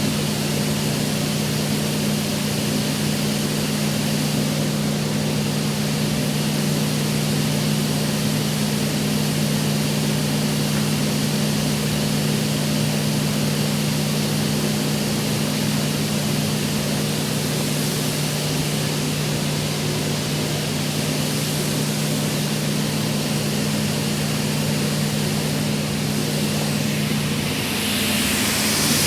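Altendorf WA 80 sliding table saw running with its dust extraction: a steady motor hum over an even rushing of air, growing louder and hissier near the end.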